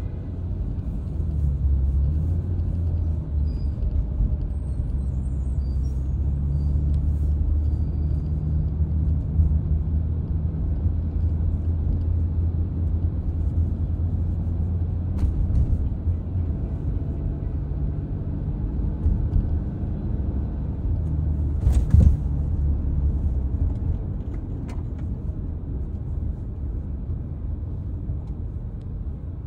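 Steady low rumble of a car driving on wet pavement, heard from inside the cabin. There are a few faint clicks, and a sharp thump about 22 seconds in.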